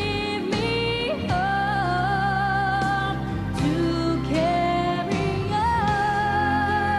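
Music with long held melodic notes over a steady bass, the melody changing pitch every second or two.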